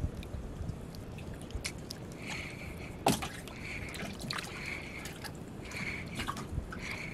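Water sloshing and dripping around a small wooden boat as a handline with caught sardines is worked over the side, with a few sharp clicks, the loudest about three seconds in. A short high chirp repeats about once a second from about two seconds in.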